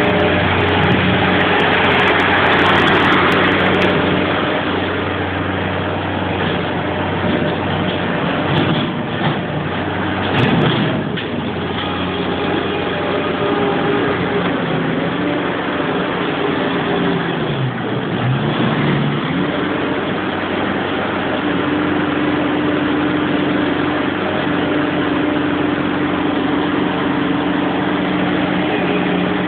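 Bobcat skid-steer loader's engine running steadily while it works. About two-thirds of the way in, the engine note sags and recovers, then settles slightly higher. A few knocks are heard near the middle.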